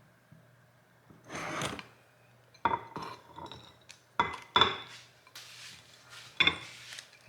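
Dishes and utensils being handled: several sharp clinks with a brief ring, spaced irregularly, between rustling and scraping sounds, over a faint steady low hum.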